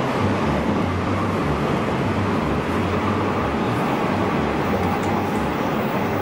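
Nishitetsu limited express electric train running at speed, heard from inside the passenger car: a steady running noise with a low, pulsing rumble.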